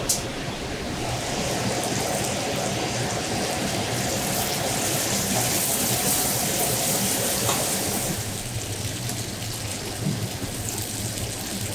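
Sauce sizzling and bubbling on a hot stone plate set over a gas burner. The sizzle is a steady hiss that grows brighter a few seconds in and eases back near the end.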